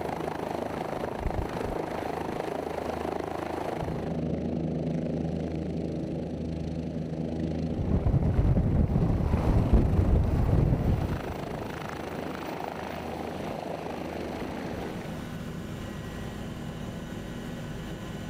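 Bell OH-58D Kiowa Warrior helicopter running: the steady hum and whir of its Rolls-Royce Model 250 turbine and rotor, growing louder for about three seconds near the middle before settling back.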